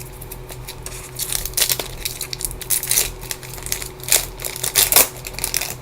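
Trading card pack wrapper being torn open and crumpled in the hands: an irregular run of crinkling crackles, loudest about three, four and five seconds in.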